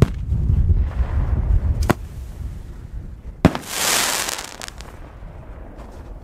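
Fireworks going off. A low rumble gives way to a sharp bang about two seconds in, then a louder bang about three and a half seconds in, followed by about a second of hissing crackle that fades away.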